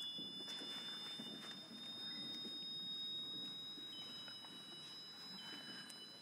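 Thin high sustained tones from a sound installation: one slowly gliding upward while another holds steady, and a third entering near the end and stepping lower. Underneath is a faint low rumbling clatter.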